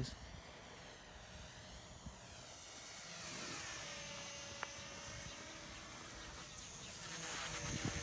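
Eachine Mini Mustang P-51D, a 400 mm foam RC plane, flying overhead: its small electric motor and propeller make a high whine that swings up and down in pitch as it passes. It grows louder about three seconds in and again near the end.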